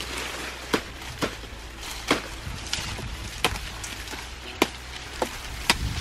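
Sugar cane stalks being chopped with a blade: about eight sharp, short chopping strokes at uneven intervals.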